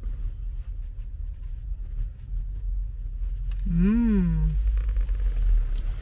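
A person tasting a lemon-filled doughnut hums one appreciative "mmm" about four seconds in, its pitch rising and then falling. A low steady rumble runs underneath.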